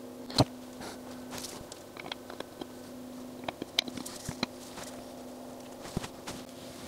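Small clicks and taps of telescope lens glass and a cleaning cloth being handled with gloved hands, the sharpest click about half a second in, others scattered through, over a faint steady hum.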